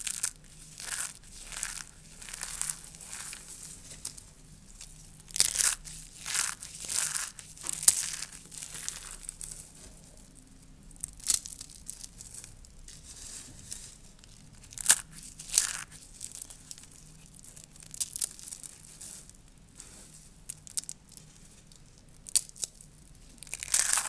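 Dry soap curls being crushed and broken: irregular crispy crunches and crackles, some loud and clustered, with quieter stretches between.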